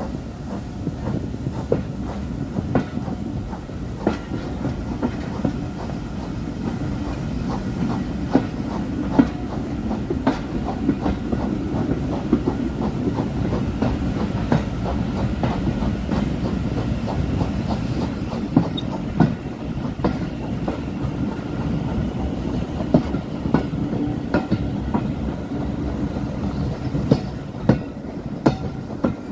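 Passenger coach of a steam-hauled train running along jointed track, a steady rumble with the wheels clicking over the rail joints, heard from a carriage window.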